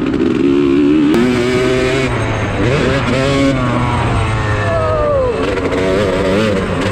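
Dirt bike engines revving on a motocross track, their pitch rising and falling repeatedly, with more than one engine heard at once.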